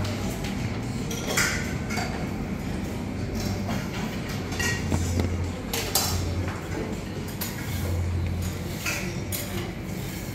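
Restaurant buffet clatter: scattered clinks of dishes and cutlery, several sharp ones spread through, over a low steady hum.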